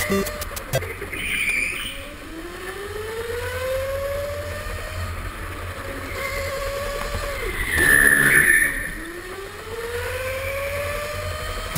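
Go-kart engine revving under acceleration, its pitch climbing steadily, then falling off sharply about seven and a half seconds in with a brief louder noisy burst, and climbing again.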